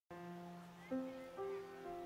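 Soft background music of slow, held notes, a new note coming in about once every half second after the first second.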